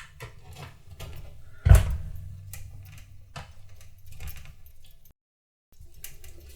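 A metal screwdriver clicking and scraping on a stuck screw inside a steel PC case, with handling knocks, one of them loud about two seconds in. The sound cuts out completely for half a second about five seconds in.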